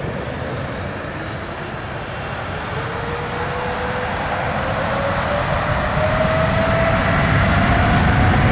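Twin GE90 turbofans of a Boeing 777-200LR spooling up for takeoff: a rising whine over a heavy jet roar that grows steadily louder as thrust builds at the start of the takeoff roll.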